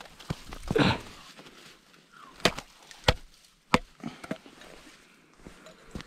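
Three sharp knocks about half a second apart, with rustling and scuffing on crusted snow, as a freshly caught burbot and its set line are handled on the ice.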